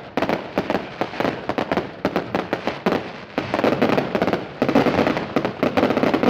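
Fireworks going off in rapid, overlapping cracks and pops, growing denser into an almost continuous crackle about halfway through.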